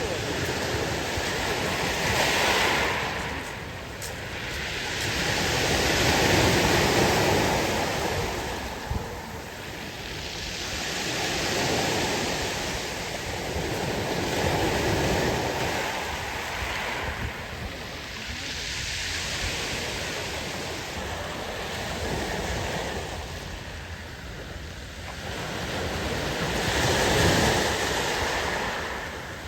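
Sea waves breaking on the shore, the surf swelling and fading in repeated surges every few seconds.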